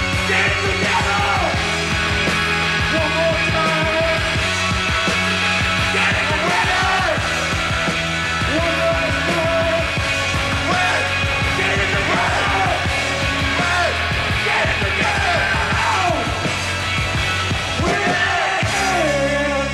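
Post-punk rock band playing live: electric guitar, bass, keyboards and drums under a man's singing and shouting. Near the end the beat stops and the chords ring on.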